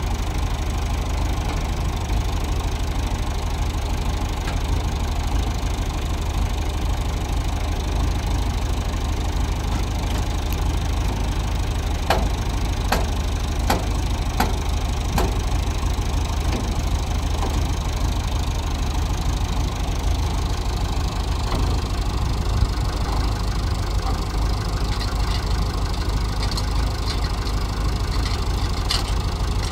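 A steady engine drone that keeps an even level throughout, with a few short clicks or knocks about halfway through.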